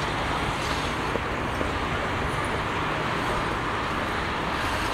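Steady engine rumble of a tracked excavator's diesel engine running, blended with city street traffic noise.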